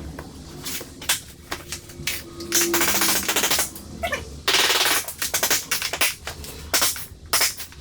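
Quick runs of sharp knocks, like a mallet tapping vinyl plank edges into place, with two scraping noises of about a second each, like a plank sliding across the floor.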